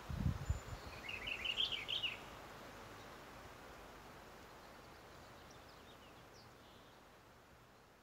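A songbird sings one short, quick phrase of jumbled high notes about a second in, then gives a few faint notes later, over steady background hiss. There are a few low thumps at the start, and the whole sound fades down toward the end.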